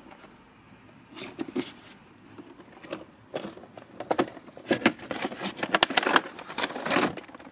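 Cardboard box and clear plastic packaging tray being handled and slid apart while an action figure box is opened: scattered taps, clicks and plastic crinkles, busier in the second half.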